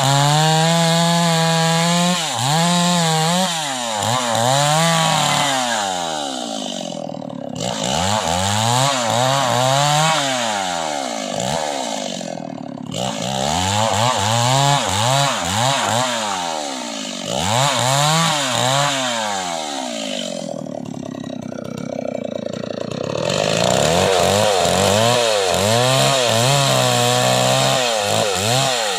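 Stihl MS 381 two-stroke chainsaw sawing wood into planks, its engine speed rising and falling every second or two as the chain takes and eases the load, with a few brief lulls where it drops back.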